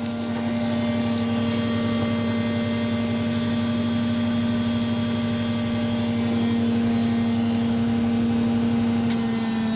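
Hoover Softwave Autowasher A0113 washing machine in its 1100 rpm final spin, the drum and motor giving a steady high-speed whine. A faint click comes near the end.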